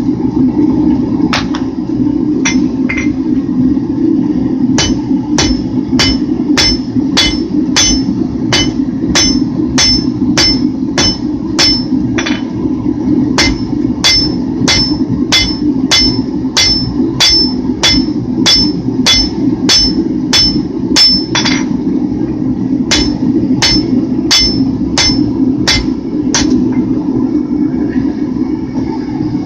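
Blacksmith's hammer striking hot steel on an anvil, about two blows a second with a bright ring on each. A few scattered blows come first, then a long steady run with a short pause near the end, while a handle is drawn out to a taper. Under it runs the forge's steady roar.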